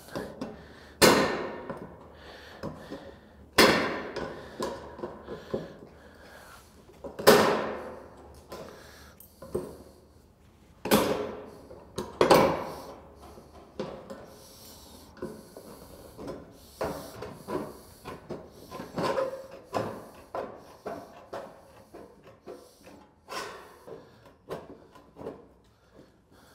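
Hand metal snips cutting thin painted steel gable trim: a series of sharp snips, five heavy ones in the first half each followed by a short ringing of the sheet, then lighter, quicker snips and handling of the metal.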